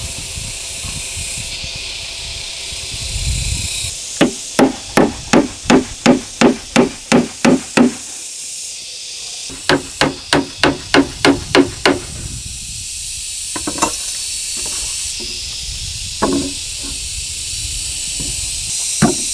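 Claw hammer nailing wooden boards of a pigeon nest box: two runs of quick, even blows, about three a second, the first a dozen strikes long and the second about eight, then a few lighter taps near the end.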